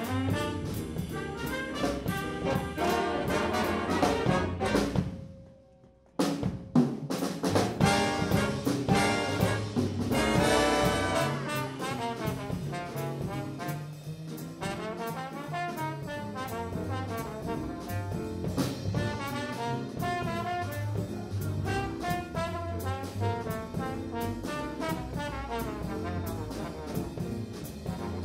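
Jazz big band playing live, with saxophones, trombones, trumpets, piano, bass and drum kit. The band cuts off to near silence about five seconds in, comes back in loud about a second later, and settles into a quieter passage after about twelve seconds.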